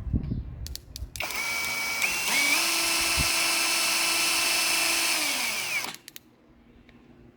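Cordless drill driving a homemade outboard motor, its electric motor whining steadily after a couple of clicks. The pitch steps up about two seconds in, then winds down and stops about six seconds in.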